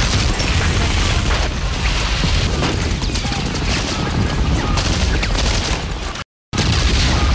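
Dense battle noise of rapid gunfire and booming explosions, which cuts out abruptly for a moment near the end.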